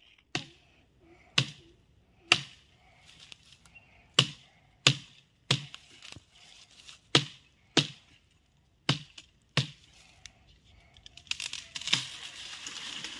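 A machete chopping into the trunk of a young eucalyptus tree: about a dozen sharp, separate blows spaced irregularly, each a crack of the blade biting into wood. Near the end comes a spell of leafy rustling as the cut sapling is moved.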